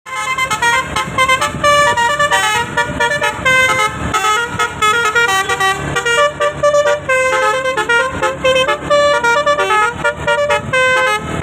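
Telolet bus horn: a set of roof-mounted multi-tone air horns played nonstop, sounding a quick melody of short, stepping notes, with a low rumble underneath.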